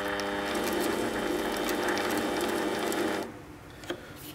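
Mini lathe spindle running at low speed with a steady gear whine, turning the chucked M16 bolt to run a plastic nut onto its thread. It stops abruptly a little over three seconds in.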